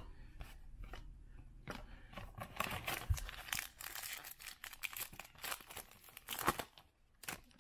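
A Topps Big League Baseball foil card pack being torn open and its wrapper crinkled. A dense crackle starts about two seconds in and runs for several seconds.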